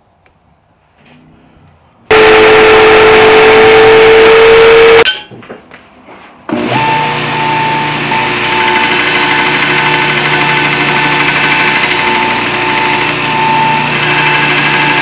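Bench belt grinder running with a steady whine while a small red spacer disc is sanded round against the belt. It starts about two seconds in, cuts off abruptly near five seconds, and starts again about a second and a half later.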